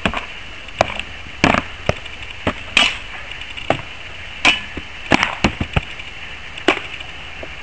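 Sword blows landing on shields in a sparring bout: about a dozen sharp cracks and knocks at irregular intervals, several coming in quick succession around the middle.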